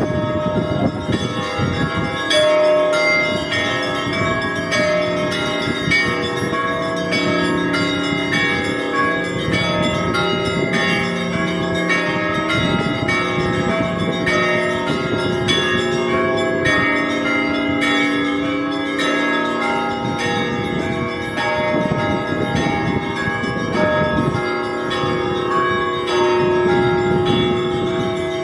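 Church bells ringing, several bells of different pitch struck in quick, continuous succession so that their tones overlap in one unbroken peal.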